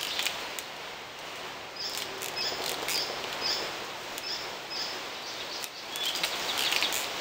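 Woodland ambience with a small bird repeating a short high chirp about twice a second, and a brief run of high bird notes near the end.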